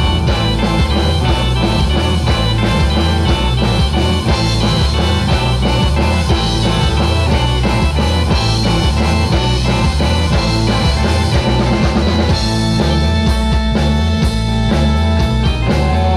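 Live rock band playing: drum kit, electric guitar, bass guitar and keyboard together in a steady groove, the keyboard's held chords coming forward about three-quarters of the way through.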